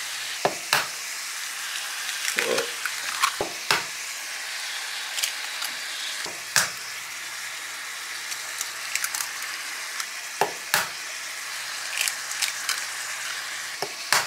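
Ground beef frying in a cast iron skillet with a steady sizzle, broken by sharp cracks and taps as eggs are cracked and dropped into the pan.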